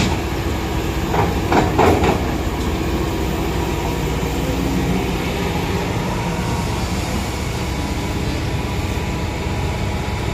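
Kobelco SK210LC hydraulic excavator's diesel engine running steadily under load as the machine swings and digs. There are a few loud knocks about one to two seconds in, as a bucket of soil is dumped into a dump truck's bed.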